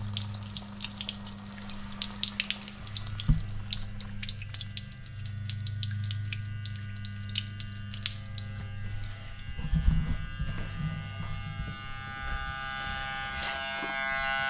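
Sea-Doo OEM bilge pump's small electric motor humming steadily while pumped water splashes out of the hull's outlet by the jet pump, the splashing thinning to a trickle about halfway through. A knock about three seconds in and a low thud near ten seconds.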